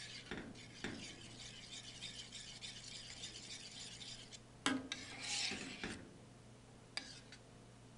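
Metal spoon stirring a stainless steel pot of rice milk and sugar, scraping over the bottom and sides. There is one sharp knock of the spoon against the pot a little past halfway, then a shorter spell of scraping and a small click.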